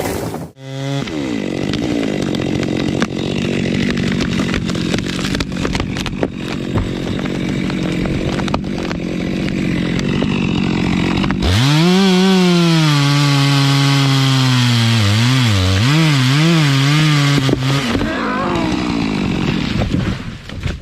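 Chainsaw running at high speed through wood. About halfway through, the sound changes abruptly to a saw that revs up, holds, then is throttled up and down several times before tailing off.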